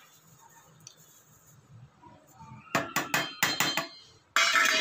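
A steel plate tapped against the rim of a metal cooking pot in a quick run of about eight sharp metallic taps, knocking the last ground rice into the milk, then a short clatter of metal near the end.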